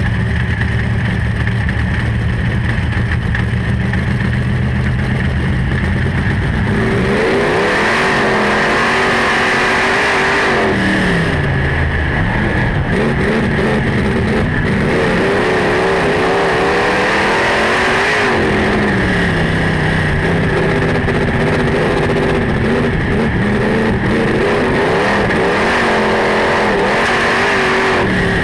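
Super Rod speedway car's engine heard from on board, running steadily at low revs for the first few seconds. It then races: the revs climb on each straight and drop away into each turn about every eight seconds, over a steady high whine.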